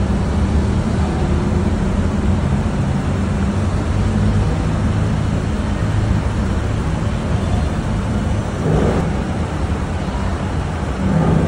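Ship's engines droning steadily, a constant low hum heard on the ferry's enclosed vehicle deck, with a brief swell in level about nine seconds in.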